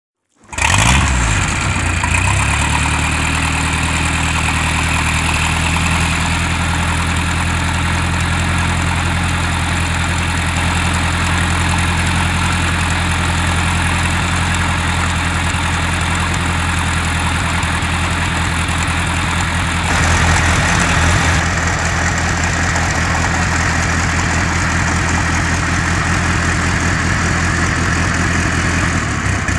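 Boat's inboard engine with a sterndrive idling steadily while run out of the water on a hose hookup, a little louder and brighter for a moment about twenty seconds in.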